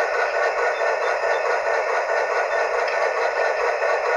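Sierra sound board in a Bachmann Heisler locomotive playing a steady steam hiss through the engine's small speaker, running weakly without its backup battery fitted.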